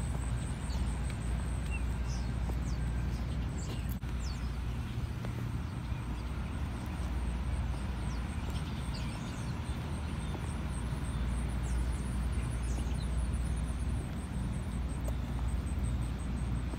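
Footsteps on a concrete sidewalk over a steady low outdoor rumble, with a few faint bird chirps.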